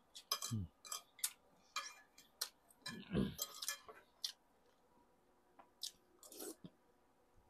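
A man eating stewed pork: the spoon and fork click and scrape on a ceramic plate, with chewing and mouth sounds picked up close by a clip-on microphone. A run of short clicks comes first, then a pause and a few more clicks as he takes a spoonful.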